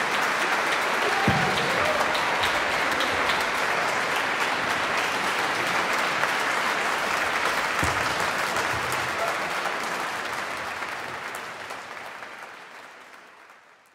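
Sustained applause from the choir and audience, steady and then fading out over the last few seconds.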